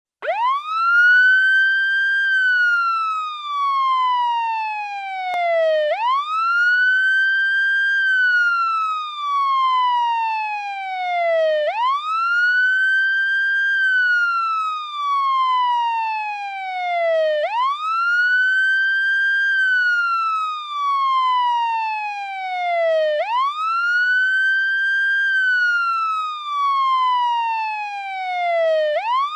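American police siren sounding its wail: a high tone that sweeps up quickly, holds briefly at the top, then slides slowly down before jumping up again, about once every six seconds, five times.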